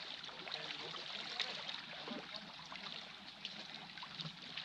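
Calm sea water lapping and trickling among the boulders of a rocky breakwater, a steady wash full of small irregular crackles and ticks.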